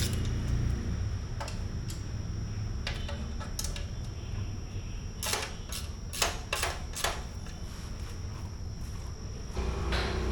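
Scattered sharp metallic clicks and clinks of hand tools and bolts as a motorcycle's bash plate is unbolted, with a cluster of quick clicks in the middle and a few more near the end, over a steady low rumble.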